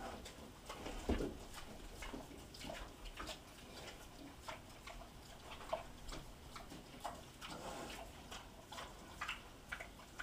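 Pot-bellied pigs eating from metal feed bowls: irregular, open-mouthed smacking and clicking chews, a few of them a little louder.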